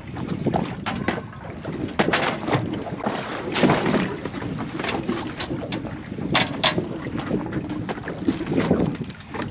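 Wind buffeting the microphone on a small open boat, with scattered sharp knocks and taps.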